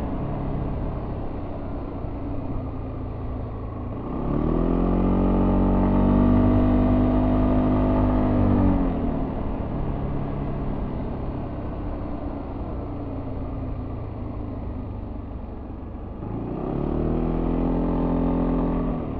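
Yamaha Tricity 300 scooter's single-cylinder engine through its stock exhaust, heard on board while riding. The throttle opens about four seconds in and the engine note climbs and holds for some seconds, then drops back to a lower steady drone as the rider rolls off, and climbs again near the end before falling away.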